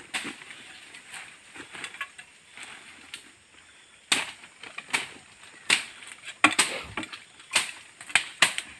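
Irregular sharp snaps and cracks with rustling, a dozen or so from about four seconds in, as a person climbs through branches and bark onto a fallen tree trunk.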